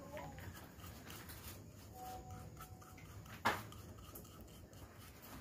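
Quiet room noise with faint handling of a paper puppet and paintbrush, and one sharp click or tap about three and a half seconds in.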